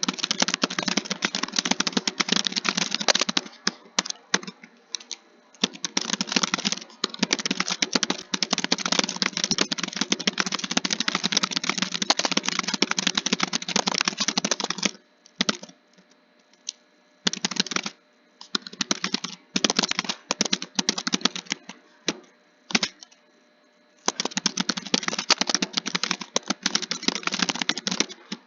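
Typing on a computer keyboard: fast, continuous runs of key clicks broken by short pauses, with a longer pause about halfway through.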